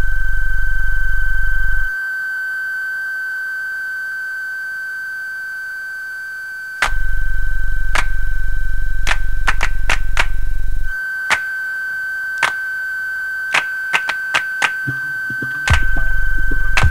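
Electronic soundtrack: a steady high sine tone over a loud low buzz that cuts out about two seconds in, comes back, and drops out again. Sharp clicks are scattered through the second half.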